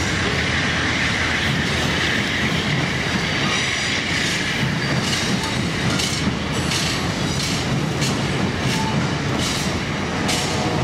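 Amtrak California Zephyr's Superliner passenger cars rolling past on the main line: a steady rumble of wheels on rail, with a high hiss in the first few seconds, then regular clacks as the wheels cross rail joints.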